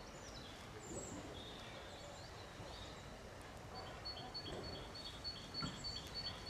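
Birds singing in the quiet. In the second half one bird repeats a rapid high two-note chirp about three times a second.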